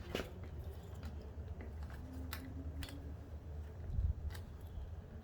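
A few sharp plastic clicks and a low knock from seat trim pieces and clips being handled and worked loose, over a low steady hum.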